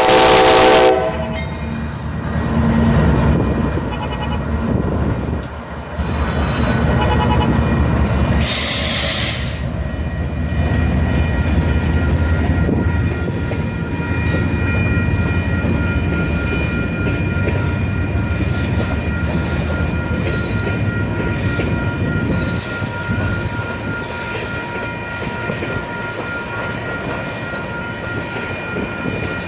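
Freight train passing slowly: the lead locomotive's horn cuts off about a second in, then diesel locomotive rumble and the rolling of heavy grain cars, with a brief loud hiss near nine seconds. From about ten seconds on, wheels squeal steadily in several high tones as the cars take the curved track.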